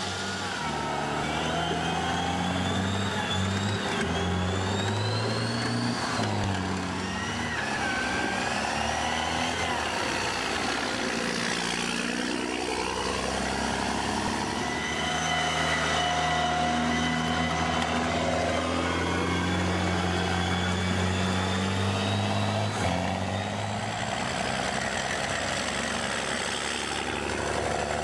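British Army CVR(T) tracked armoured vehicles, such as the Scimitar, driving past with their engines running. The engine pitch shifts every few seconds, and high whining squeals sound over it.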